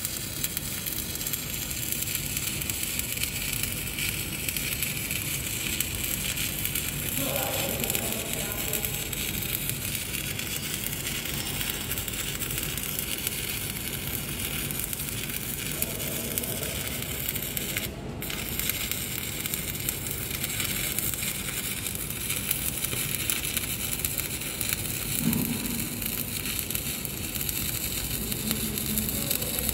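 Shielded metal arc (stick) welding with a low-hydrogen LB-52 (E7016) electrode: a steady crackling, sizzling arc. The arc briefly cuts out about eighteen seconds in.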